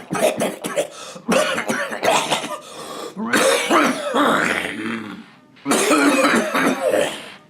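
A man with a cold in a coughing fit: hard, repeated coughs in several bouts with short pauses between them.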